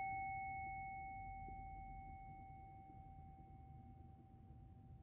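Tibetan singing bowl struck with a mallet, its ring slowly fading away. The higher overtone dies out about four seconds in, while the low hum lingers faintly.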